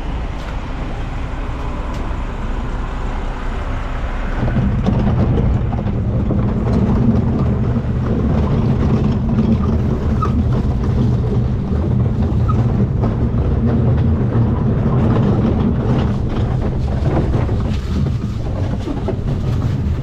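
Front-load garbage truck's engine running steadily. About four seconds in it steps up to a louder, higher engine speed and holds there, with scattered clanks over it.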